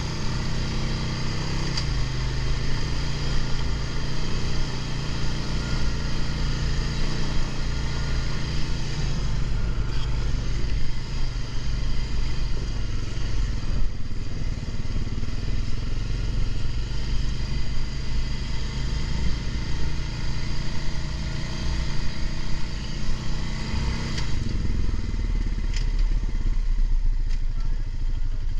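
Honda ATV's single-cylinder engine running while the quad is ridden over a dirt and sand trail, its pitch shifting as the throttle changes. It eases off and runs quieter about four seconds before the end.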